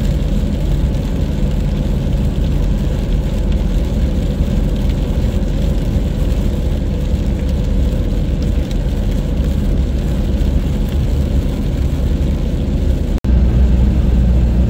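Steady road noise inside a moving car's cabin: engine drone and tyre hiss on a wet road. It drops out for an instant near the end, then carries on with a deeper rumble.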